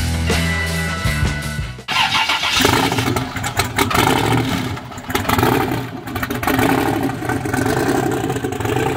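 Rock music for about two seconds, then it cuts off and a 6.0-litre LS2 V8 swapped into an old Dodge Ram pickup is heard running, its sound rising and falling.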